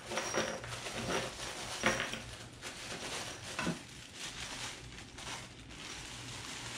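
Clear plastic bag of galvanized carriage bolts crinkling and rustling as it is handled and opened, in a run of small irregular crackles.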